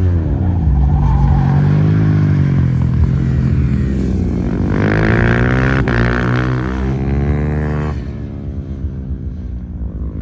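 Superbike engines running hard, their pitch falling at first, climbing again about four seconds in, and dropping near the end.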